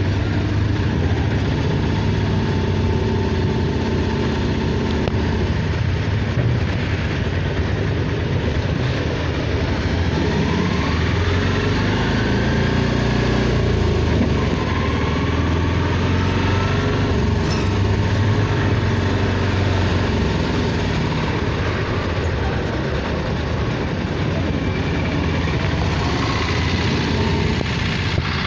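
Motor vehicle engine running steadily amid street traffic noise, with a few faint rising and falling tones near the middle.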